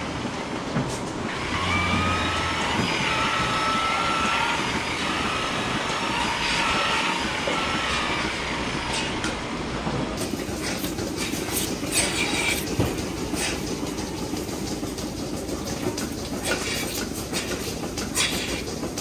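Milking parlour machinery running: a steady mechanical rumble and hiss of the milking equipment, with thin whistling squeals in the first half. About ten seconds in it gives way to a clatter of sharp clicks and knocks over the same rumble.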